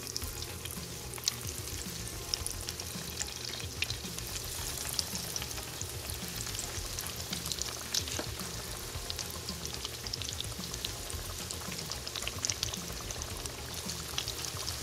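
Breaded chicken strips deep-frying in hot oil in a cast-iron skillet: a steady sizzle with frequent small pops and crackles.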